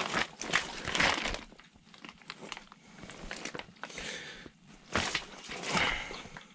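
A run of irregular rustles and crunches as clothing and gear are handled close to the chest-mounted camera, while a burbot is being landed through the ice.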